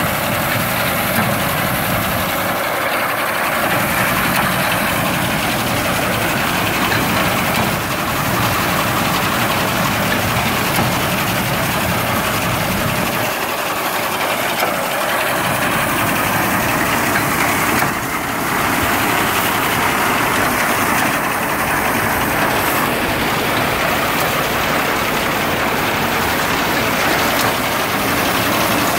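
Tractor engine running steadily while driving a Yapel TDG 180 reaper-binder through its power take-off, a loud, even mechanical din that dips briefly about two-thirds of the way through.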